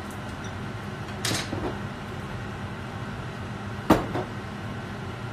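Kitchen handling noises over a steady low hum: a short scraping clatter about a second in, then a sharp knock just before four seconds in, the loudest sound, followed by a smaller knock.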